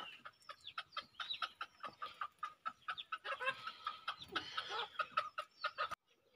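Chickens clucking in a quick, busy run of short calls, mixed with light clinks of a steel ladle against a steel bowl. It cuts off suddenly near the end.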